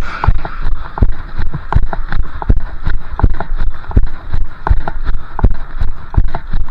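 A runner's footfalls, heard through a chest-mounted camera as steady, rhythmic thumps about three a second.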